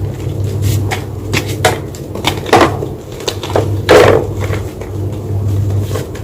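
White gym chalk being crunched: irregular sharp crunches, the loudest about two and a half and four seconds in, over a steady low hum.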